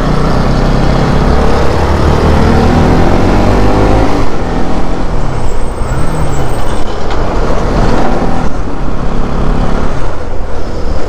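Bajaj Pulsar NS200's single-cylinder engine pulling on the move, its pitch rising steadily for about four seconds, then easing off and revving up and down again, over steady road and wind rush.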